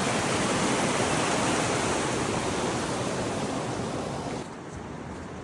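Rushing water: a loud, steady roar that drops suddenly to a much quieter hiss about four seconds in.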